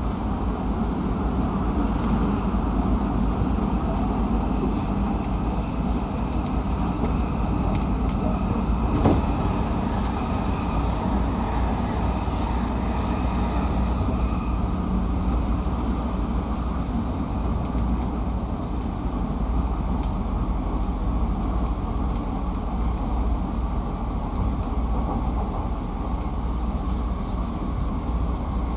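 Running sound inside a JR East 209 series (1000 subseries) electric train's motor car: a steady rumble of wheels on rail and the running gear. A faint whine fades away about halfway, and there is a single sharp knock about nine seconds in.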